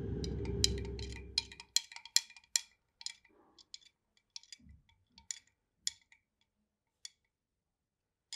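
A low rumble fading out over the first couple of seconds, then a string of irregular light clinks with a faint ring, coming less often toward the end.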